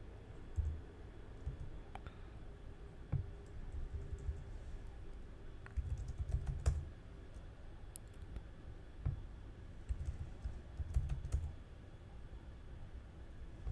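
Typing on a computer keyboard: irregular short runs of keystrokes with pauses between them.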